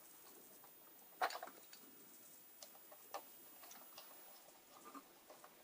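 Faint, scattered clicks and taps of a screwdriver and small plastic parts as a G scale model train truck is screwed back onto the underside of a passenger car, with one sharper click about a second in.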